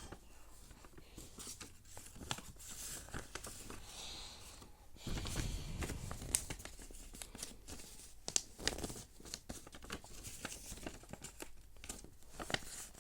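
A sheet of paper being folded and creased by hand, with crinkling rustles and short sharp crackles as the folds are pressed.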